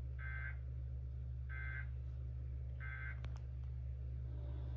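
Emergency Alert System end-of-message tones: three short bursts of SAME digital data squawk, about a second apart, signalling that the alert is over. A steady low hum runs underneath, and a couple of clicks follow the last burst.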